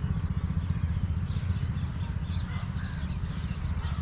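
Wind buffeting the microphone as a steady low rumble, with faint bird calls above it.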